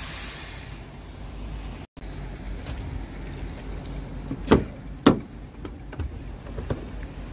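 Scania truck cab door latch being pulled open by its handle and the door swinging open: two sharp clunks about half a second apart, followed by a few lighter clicks.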